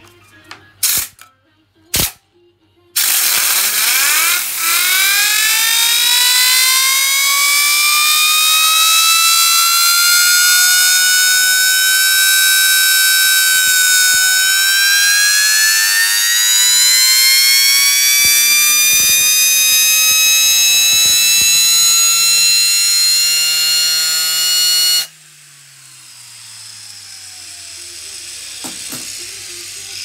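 Vacuum cleaner motor's fan impeller spun up by a compressed-air blow gun, giving a loud siren-like whine that rises in pitch as it speeds up. About 25 seconds in, the air stops abruptly and the fan coasts down with a falling hum. A couple of knocks come a second or two before the air starts.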